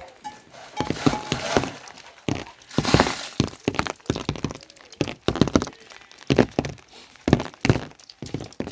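A run of irregular knocks and thuds, about two a second, some with a sharp crack.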